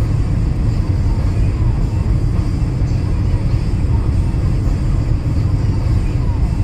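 Car driving on a wet road: a steady low rumble of tyres and engine.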